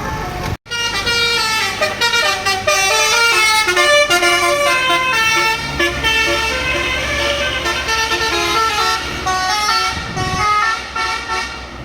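A bus's telolet basuri multi-tone horn playing a quick melody of stepped notes, with a low engine hum underneath from about halfway.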